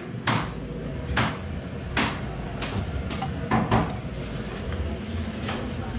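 Serving utensils knocking and clinking against a metal bakso pot and bowls: a series of sharp, irregular knocks over a steady low rumble.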